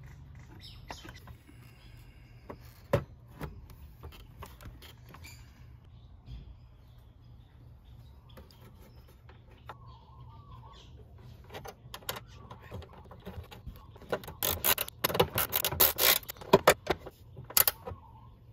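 Hands working plastic trim and screws under a scooter's floorboard: scattered clicks and taps, then a dense run of loud clicking and rattling in the last few seconds.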